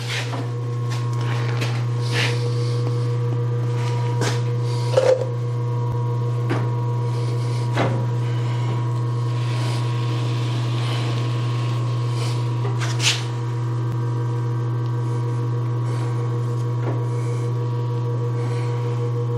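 DoAll 14-inch surface grinder running with a steady low hum, with a few light clicks and knocks from hands working the machine.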